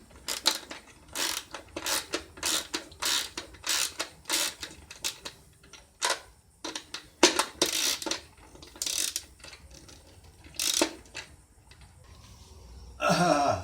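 A hand tool working metal bolt hardware: a run of short, sharp rasping strokes, about one every half second at first, then more irregular. Near the end comes a louder sound that falls in pitch.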